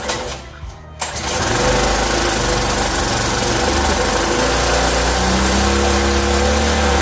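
The 5 hp Briggs & Stratton engine of a 1991–92 Toro lawn mower catches about a second in and runs steadily at speed, its pitch rising slightly in the last couple of seconds.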